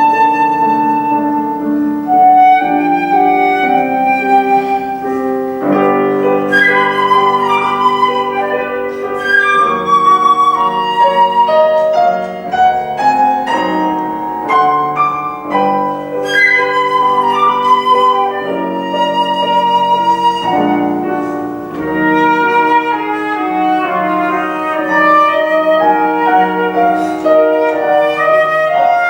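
Flute and piano playing a classical piece together, the flute carrying a melody with vibrato over the piano accompaniment.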